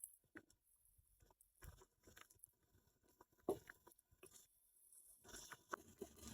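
Near silence with faint, scattered kitchen handling sounds: small clicks and taps of utensils at the pot, one sharper knock about three and a half seconds in, and a soft rustling scrape near the end.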